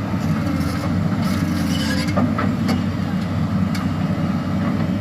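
Excavator's diesel engine running steadily, with a few faint clicks and knocks over it.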